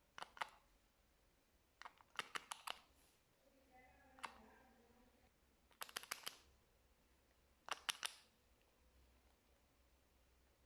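Sharp clicks in quick clusters of two to five, about five clusters a second or two apart, over faint room tone.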